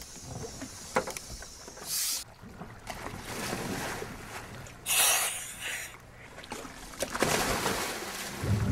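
Water splashing as divers drop off a dive boat into the sea, with the loudest splash about five seconds in and more splashing near the end.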